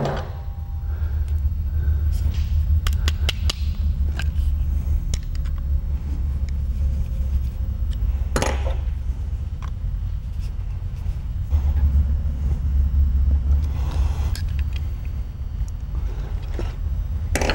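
Small steel shotgun fore-end parts clicking and scraping now and then as they are handled and fitted by hand, over a steady low rumble.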